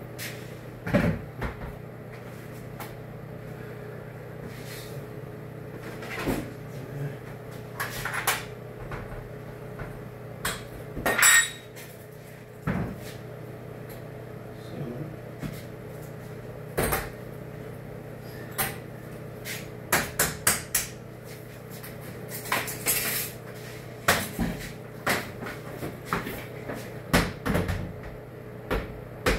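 Scattered knocks and clunks of a toilet partition panel being handled and set into place, with a run of quicker, sharper knocks near the end, over a steady low hum.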